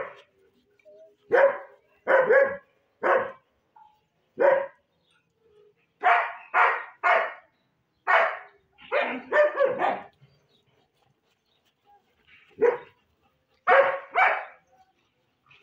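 German Shepherd dogs barking, about fifteen barks in all, some single and some in quick runs of two or three, with a pause of a couple of seconds in the second half.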